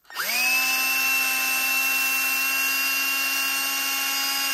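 Electric drill spinning a hinge pin in its chuck while it is polished with a Scotch-Brite pad: the motor winds up quickly to speed, runs at a steady pitch, and stops at the end.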